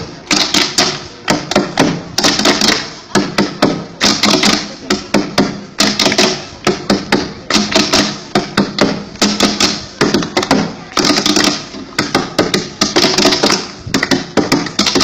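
Rapid, rhythmic striking, many strikes a second, in a pattern that repeats with a louder accent roughly every two seconds.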